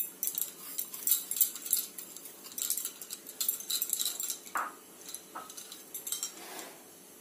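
Granulated sugar being tipped from a glass bowl into a metal pot: a rush of fine ticks and light clinks that thins out over the last few seconds.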